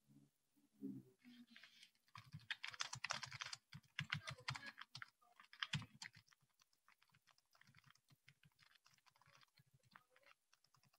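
Typing on a computer keyboard: a quick run of keystrokes starting about two seconds in, then sparser, fainter taps.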